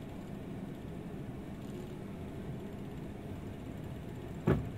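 Steady low hum inside the cabin of a parked Bombardier Q400 airliner. One short, sharp thump comes about four and a half seconds in.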